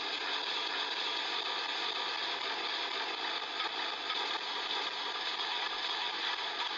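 Trailer-mounted wood chipper running steadily while branches are fed into it, a constant even mechanical din with no distinct changes.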